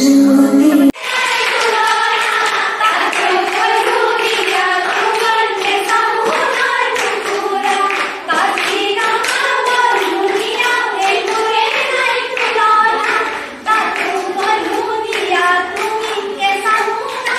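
A group of young women singing a song together, with rhythmic handclaps. Before it, a recorded song with plucked strings cuts off abruptly about a second in.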